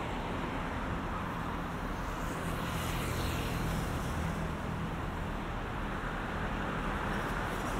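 Street traffic: a motor vehicle's engine running steadily over the hum of road noise.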